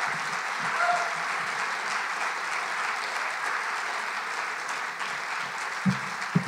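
Audience applauding at the end of a talk, with a brief pitched sound about a second in and two low thumps near the end.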